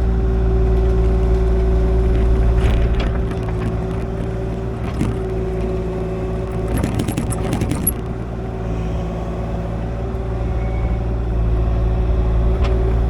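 Kubota KX040 mini excavator's diesel engine running steadily under load, with clanks and rattles in the middle, loudest in a burst lasting over a second.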